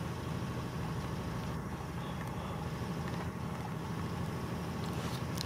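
Steady low background rumble with no distinct events, and a faint click near the end.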